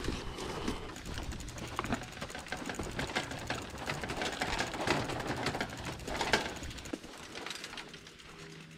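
A Roadmaster mountain bike being handled and wheeled along a sandy dirt trail: rapid clicking and rattling from the bike, busiest in the middle, thinning out over the last couple of seconds.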